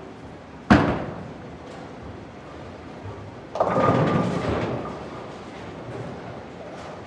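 Bowling alley heard from behind a lane, at the pin end: a single sharp bang under a second in, then a clatter of pins and machinery lasting about a second, over a steady mechanical rumble.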